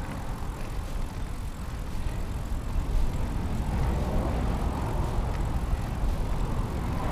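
Wind and road noise of a recumbent trike rolling along a highway shoulder: a steady, uneven low rumble on the camera microphone with tyre hiss.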